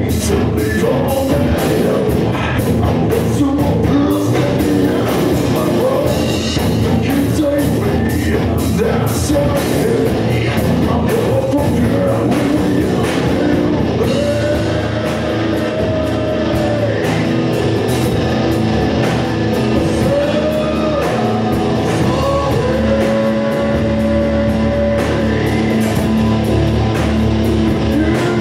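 Live rock band playing loud: electric guitar, bass guitar and drum kit, with a singer in the microphone who holds long notes in the second half.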